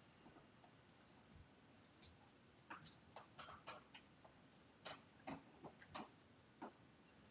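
Faint, irregular clicks and taps of a puppy's claws on a hardwood floor and on a plastic perch bowl as it steps about.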